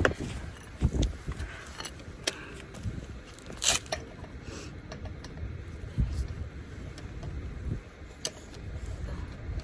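Metal tools clinking and knocking, with scattered low thumps and a short rasping scrape about four seconds in, as a breaker bar and socket are worked against seized lug nuts on a van's front wheel.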